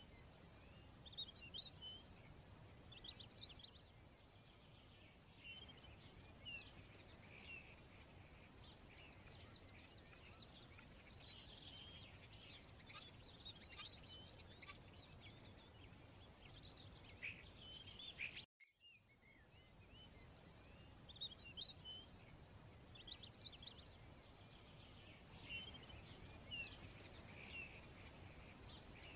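Faint scattered bird chirps over a low steady hiss. The sound cuts out for an instant about two-thirds of the way through, then the same chirping pattern starts over.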